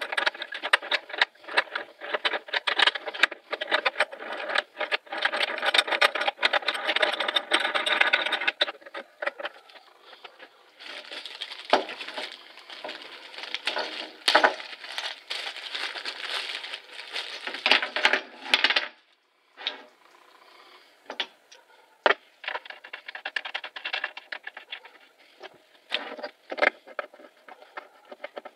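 Small wooden blocks and bench dogs being handled on a wooden workbench top: many sharp knocks, clicks and rattles. A stretch of steady noise sits in the middle and stops abruptly.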